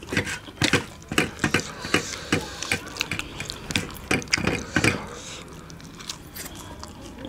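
Close-miked eating sounds of chole bhature eaten by hand: a quick run of clicks and smacks from chewing and from fingers tearing bhature and scooping chole in steel bowls, about three or four a second, thinning out after about five seconds.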